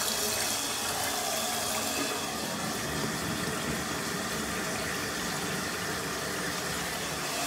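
Bath tap running a steady stream of water into the tub, turned on to test a newly fitted bathtub drain trap for leaks.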